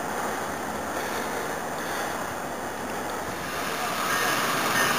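Steady rushing noise of an approaching Amtrak passenger train mixed with wind on the microphone, growing louder near the end as the train draws closer.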